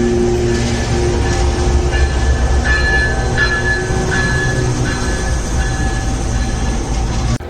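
Freight train hauled by diesel locomotives passing, with a steady low engine drone. Wheels squeal on and off from about three to five seconds in. The sound drops out abruptly for a moment near the end.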